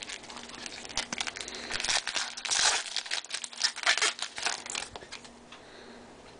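Trading cards and their packaging being handled: a run of crinkles, rustles and scrapes, densest about two and a half seconds in and dying down near the end.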